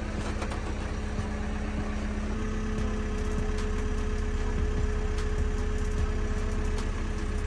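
Backhoe engine idling steadily just after starting. About two seconds in its note steps up slightly and it gets a little louder.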